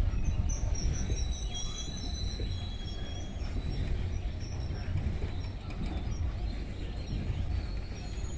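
Container freight train wagons rolling over a concrete bridge: a steady low rumble of wheels on rail. Birds chirp during the first few seconds.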